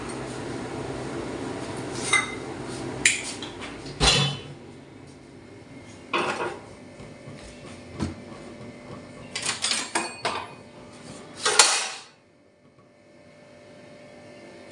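Metal cookware clattering on a gas stove: a pressure cooker and a flat griddle (tawa) being handled and set down, in a series of separate clanks and scrapes, the loudest near the end. A low steady hum runs under the first few seconds.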